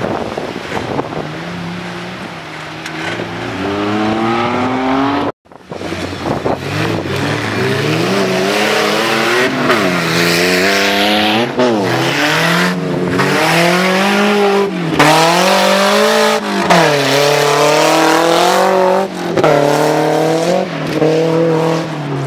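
Off-road 4x4 jeep engine revving hard, its pitch climbing and falling again and again as the throttle is worked and the gears change. The sound drops out briefly about five seconds in, and the first few seconds carry a rushing noise under a slowly rising engine note.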